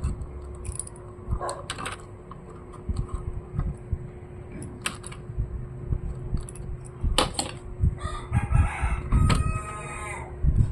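A rooster crowing about eight seconds in, a pitched call lasting about two seconds, over scattered small clicks and knocks of laptop parts being handled and fitted.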